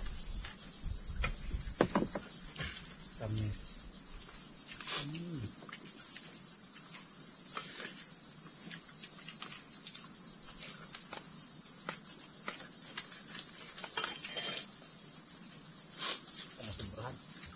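A loud, high-pitched insect chorus buzzing steadily in the trees, pulsing rapidly without a break.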